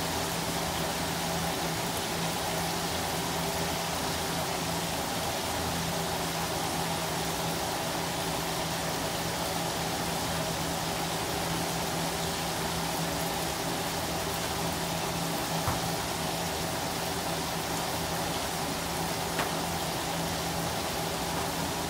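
Whole fish deep-frying in a wok of hot oil: a steady, even sizzle of bubbling oil, with a steady low hum underneath and two faint ticks near the end.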